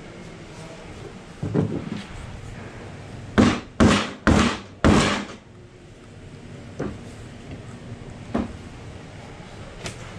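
Wooden knocks as a wooden door frame is handled on a workbench: one knock, then four loud knocks in quick succession about three and a half seconds in, followed by a few lighter taps.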